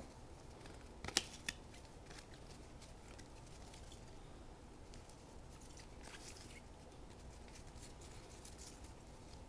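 Faint handling of 1990-91 Upper Deck hockey cards as they are fanned and sorted in the hand, with two small clicks about a second in.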